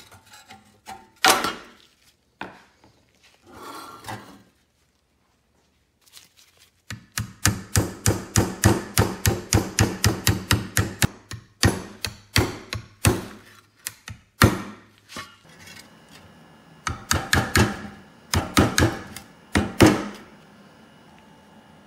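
Small hammer striking a bent, rusty sheet-steel cowcatcher from an antique toy locomotive as it lies on a wooden block, to straighten it. It starts with a single knock about a second in. A fast run of light blows follows, about four or five a second, then a few slower single taps and a short burst near the end.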